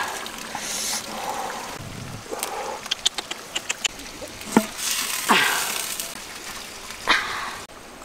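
Rustling and clicking as pieces of meat and leaves are handled and pressed into a clay pot and pushed down with a knife blade, with a quick run of sharp clicks about three seconds in. A few short falling squeaks come through about halfway.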